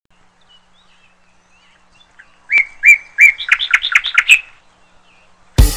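A bird calling: a run of about eight short, sharp chirps starting about two and a half seconds in, coming faster toward the end of the run.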